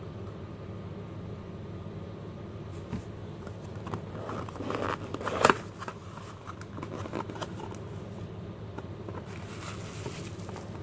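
Cardboard box handled and opened by hand: scattered rustles and clicks, with one sharp snap about halfway through. Plastic bubble wrap rustling near the end. A steady low hum runs underneath.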